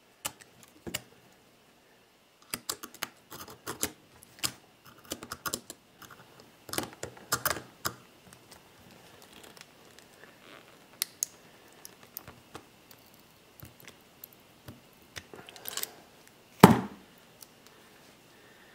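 Irregular metal clicks and scrapes of two pairs of self-adjusting pliers gripping and bending a hard drive's steel magnet bracket to work the neodymium magnet loose. A louder knock comes near the end.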